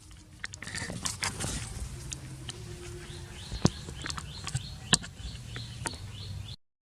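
A cat worrying a caught mouse: scattered sharp taps and clicks, with faint short high chirps repeating through the second half.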